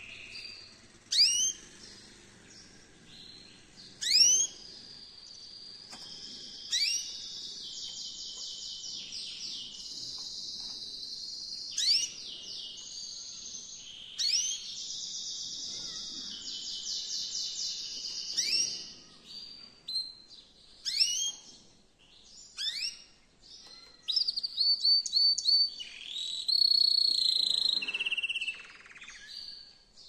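Male canary in full breeding song: long, rapid rolling trills broken by sharp, quick up-sweeping notes, with the loudest trills near the end.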